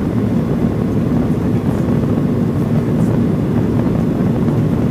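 Steady, deep cabin noise of a Boeing 737-700 in its climb-out, heard from a window seat beside the wing: the hum of its CFM56-7B engines blended with airflow over the fuselage.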